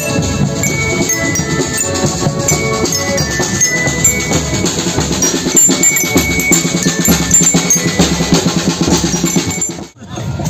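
A marching band of accordions playing a tune over snare and bass drums beating a steady rhythm. The music cuts off suddenly near the end.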